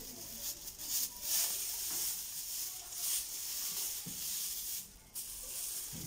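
Clear plastic wrap crinkling and rustling in irregular surges as it is pulled off a new gas water heater.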